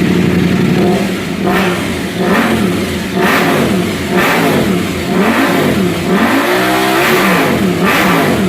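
KTM 790 Adventure R's parallel-twin engine, breathing through a Sharon Rally decat exhaust with its spark arrestor fitted, revved in repeated throttle blips, each rising and falling in pitch, about one a second, with a longer rev near the end. The warm engine sounds loud and throaty through this exhaust.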